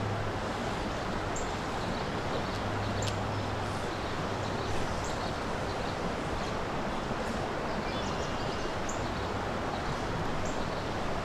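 Steady rushing and rippling of a shallow creek's current. A few short, high bird chirps come through now and then.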